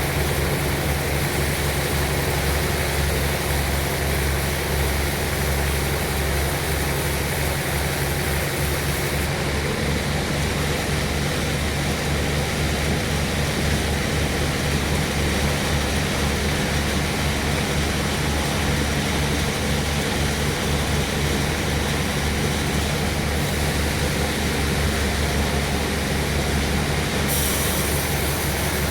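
Sawmill machinery running steadily: an engine's low, even drone with a hiss of mechanical noise over it, unchanging in level throughout.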